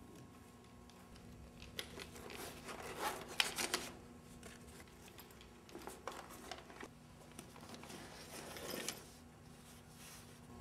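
Rustling and scraping of a cloth tote bag as a framed photograph is pulled out of it, in two spells of handling over a faint steady hum.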